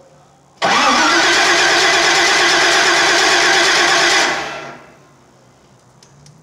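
A car engine being cranked over by its starter for about three and a half seconds without catching, then the cranking stops. The engine is getting no spark from its newly installed distributor and ignition.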